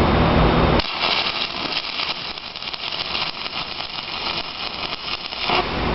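Stick welding arc crackling as a hand-held electrode welds a refractory anchor to a steel plate. The arc strikes about a second in and breaks off shortly before the end, with a steady low hum before and after it.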